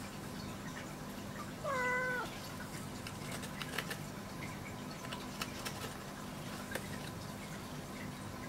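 A domestic cat gives one short meow about two seconds in, its pitch dipping toward the end. A few faint clicks follow later.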